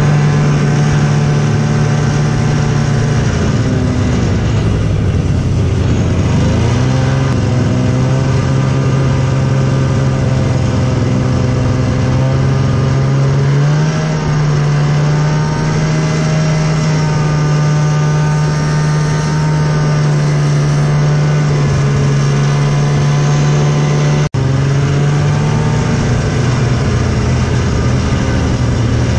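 Snowmobile engine running steadily under way. Its pitch dips and comes back up between about three and seven seconds in, then rises a little around fourteen seconds. The sound cuts out for an instant about twenty-four seconds in.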